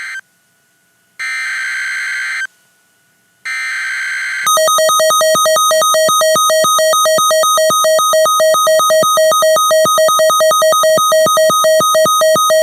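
Emergency Alert System SAME header: about one-second bursts of buzzy digital data screech with a second of silence between them, the last ending about four and a half seconds in. A loud, rapidly pulsing electronic alert tone then starts and keeps beeping.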